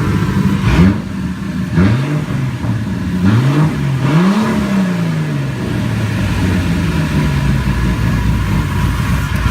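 Toyota 7M-GTE turbocharged straight-six idling after its first start with a new intercooler, blipped four times in the first half, the last rev rising and falling more slowly, then settling back to a steady idle. It is running with a vacuum leak at the throttle body.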